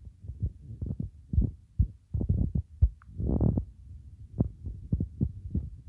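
Dull low thumps of a finger tapping and dragging on a phone's touchscreen, picked up through the phone's own microphone: irregular, several a second. About three seconds in there is a half-second rush of noise.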